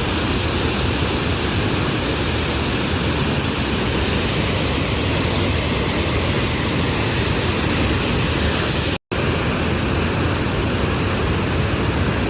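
Loud, steady rushing roar of a waterfall's falling water, cutting out for a split second about nine seconds in.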